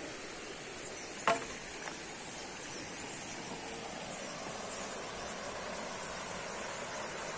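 Steady high-pitched drone of insects over the rush of a small rocky forest stream that grows a little louder near the end, with a single sharp click about a second in.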